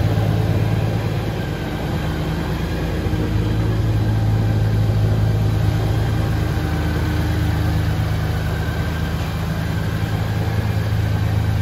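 Honda GL1800 Gold Wing's flat-six engine idling steadily in neutral.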